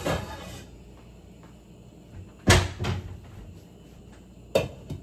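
Metal pot lid clanking as it is handled and set on a pot of noodle water to trap the heat and bring it to a boil. One loud clank comes about two and a half seconds in, with a lighter knock just after it, and another sharp knock near the end.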